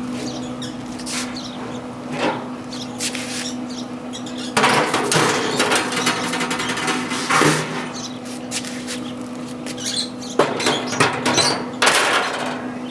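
Pit Boss pellet grill running in smoke mode with a steady low hum from its fan. Irregular rustling or scraping bursts and a few sharp knocks sound over it.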